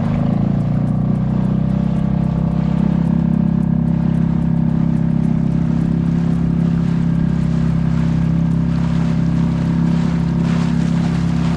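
Small boat's outboard motor running at a steady, unchanging speed, a constant low drone.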